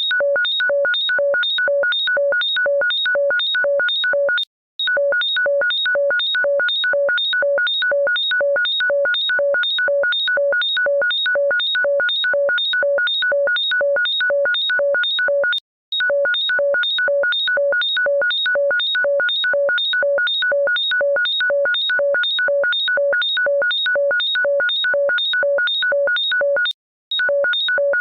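Electronic ringtone playing on a loop: a fast, even run of short synthesized beeps, about three a second, at a few pitches. The pattern breaks off for a moment and starts again about every eleven seconds, three times.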